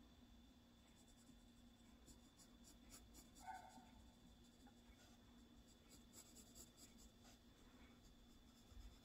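Faint scratching of a Faber-Castell graphite pencil drawing short strokes on sketchbook paper, with a brief squeak about three and a half seconds in, over a low steady hum.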